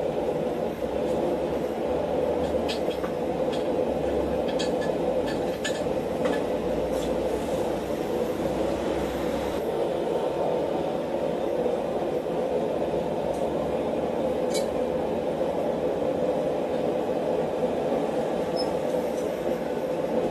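A forge running with a steady rushing noise. A few light clicks come between about two and six seconds in, and one more near the middle.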